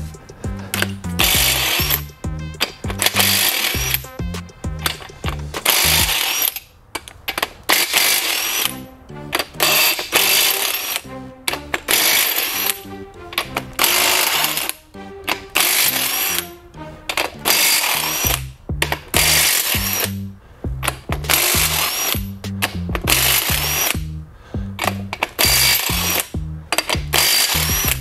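Background music with a steady beat and a stepping bassline. Over it, a cordless impact wrench runs in short repeated bursts, each about a second long, zipping the main bearing cap bolts off a Jeep 4.0 straight-six block.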